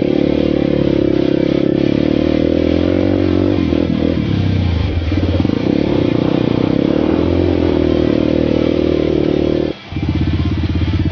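Sport ATV's single-cylinder four-stroke engine running under throttle on a dirt trail, its pitch dipping and rising about four to five seconds in. About ten seconds in the sound breaks off for a moment and resumes as steady, even running.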